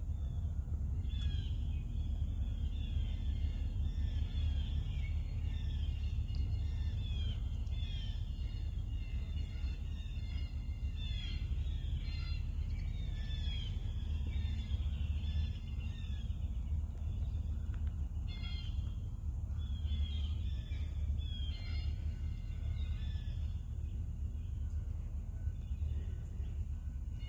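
Songbirds chirping in quick short notes that slide downward, thicker through the first part and sparser near the end, over a steady low rumble.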